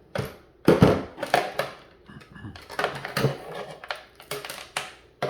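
Irregular metallic clicks, knocks and clinks of hand tools and metal parts as a gas water heater's temperature control unit is worked apart and a stuck part is pried at.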